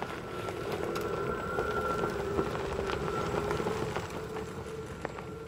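Ford F-150 Lightning electric pickup driving past on a gravel dirt track: a steady electric drive whine over tyres crunching and popping on gravel. It swells as the truck passes, then fades as it pulls away.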